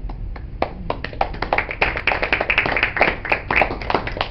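Small audience applauding at the end of a poem: a few scattered claps that quickly fill out into steady clapping about a second and a half in.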